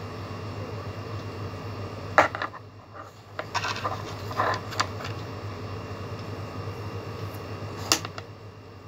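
A few sharp clicks and taps of small paint bottles, jars and a brush being handled on a tabletop, the loudest about two seconds in and a cluster in the middle, over a steady low hum.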